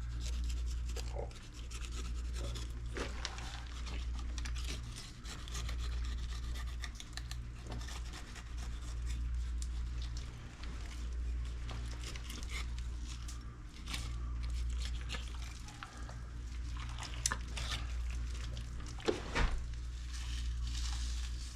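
Knife scraping and cutting along the bone of a large halibut's head to free the cheek, with small wet rubbing and scratching sounds. A steady low hum runs underneath.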